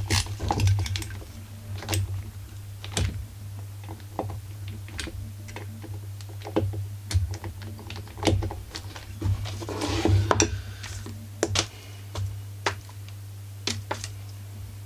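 Irregular light clicks, taps and knocks as tools and small chainsaw parts are handled on a workbench, with a stretch of rustling from work gloves about ten seconds in. A steady low hum runs underneath.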